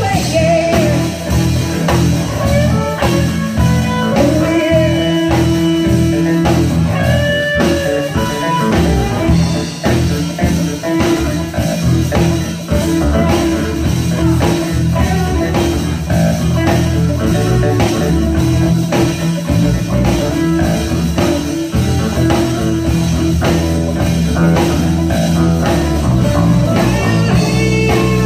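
Live band playing amplified blues-rock: electric guitars, bass guitar and drum kit, with a keyboard.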